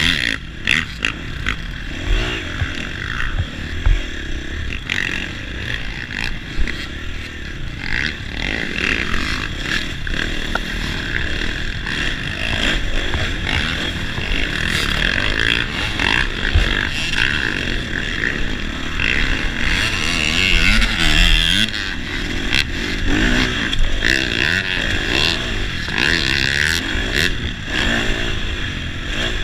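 Dirt bike engine heard from a camera on a moving bike, revving up and down as it rides the track. Occasional knocks come through.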